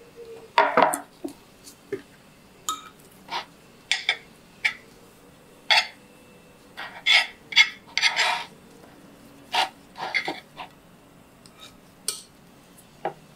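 Ceramic plate set down on a round wooden board with a knock under a second in, then handled and shifted. A string of short clinks and knocks follows, about one a second, with a longer scrape about eight seconds in.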